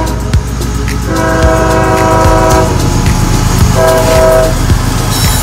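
Diesel locomotive of a CSX freight train sounding its multi-chime air horn as it approaches: a long blast about a second in, then a shorter one near the four-second mark. Under the horn there is steady engine rumble, and the wheels click sharply over the rail joints.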